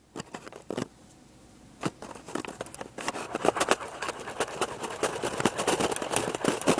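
Rapid scratchy rubbing and crackling close to the microphone, starting about two seconds in and continuing.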